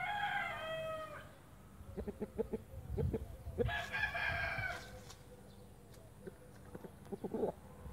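White splash Brahma rooster crowing twice: a crow tailing off in the first second, then another crow about three and a half seconds in. A run of low thumps comes between the crows, with more near the end.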